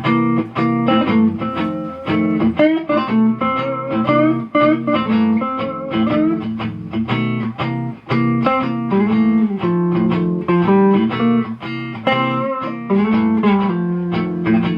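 Electric guitar played through a Mesa Boogie amp's stock 15-inch speaker: a single-note melody of quick plucked notes over a looped backing of held lower notes.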